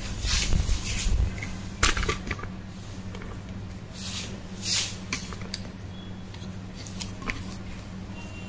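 Cotton print fabric being handled on a table: a few scattered soft rustles and brushes over a steady low hum.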